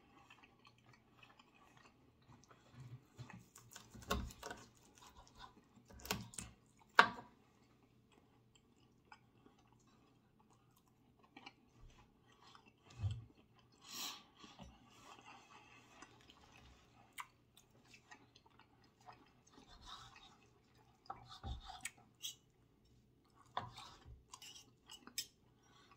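A man chewing a mouthful of grilled ribeye steak close to the microphone, with scattered soft wet smacks and mouth clicks. Near the end, a few clicks as a knife and fork start cutting the steak on a wooden board.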